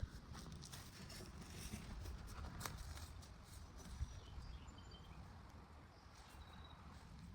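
Faint outdoor background: a low rumble with scattered light knocks and rustles, and a few brief high chirps.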